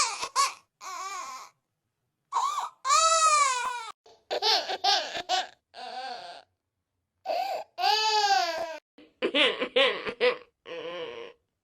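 Baby crying sound effect, replayed as a string of edited clips. Each wail rises and then falls in pitch, with silent gaps between them, and some clips are chopped into quick stutters.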